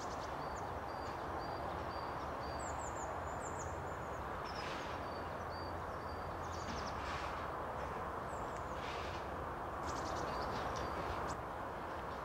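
Small birds chirping and calling: short high peeps, a few quick falling chirps and several brief rattling trills, over a steady rushing background noise.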